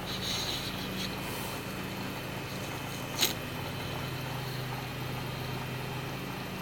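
Steady low machine hum with a faint high whine, broken by one sharp click about three seconds in.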